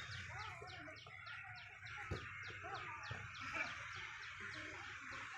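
Chickens clucking, over a rapid, even run of high chirps, about four a second.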